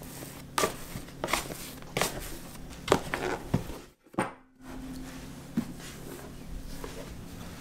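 Plastic food-storage container being handled: an orange plastic scraper works round its sides to loosen risen bread dough, then the container is tipped upside down onto a silicone mat. About half a dozen sharp light knocks in the first few seconds, a brief gap a little after halfway, then a couple more knocks over a faint low hum.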